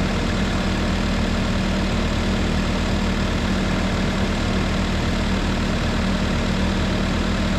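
Case TV450B compact track loader's diesel engine running steadily, heard close up from the machine itself, with an even hum that does not change.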